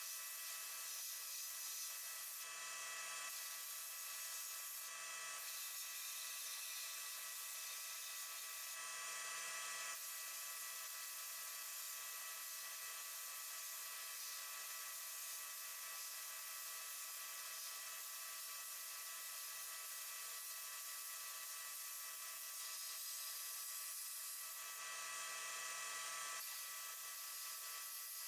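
Sandblast gun in a blasting cabinet hissing steadily as abrasive is blasted onto a small metal toy-truck part, swelling briefly a few times.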